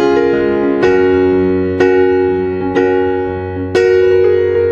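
Background piano music: sustained chords struck about once a second.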